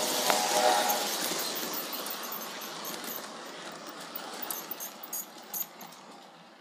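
Lionel O-gauge Amtrak Superliner cars rolling past on three-rail track, the locomotive's horn ending with a brief toot in the first second. The rolling noise fades as the cars pass, with a few sharp clicks near the end.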